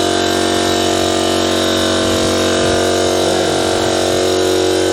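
Old tyre changing machine's motor running steadily under load, a loud even whine with a hum beneath, as it breaks the bead of a skid steer tyre.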